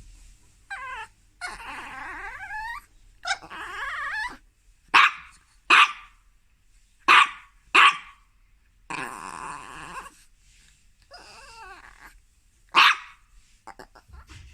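Chihuahua growling in several long stretches, broken by five sharp, loud barks: two pairs in the middle and one near the end. Angry barking.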